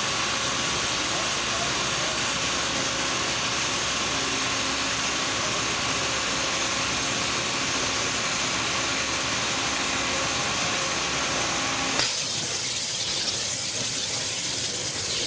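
KMT Autoline II waterjet cutting head firing a water-only jet at about 55,000 psi: a steady hiss. About twelve seconds in, after a click, the lower part of the hiss drops away, leaving a thinner, higher hiss.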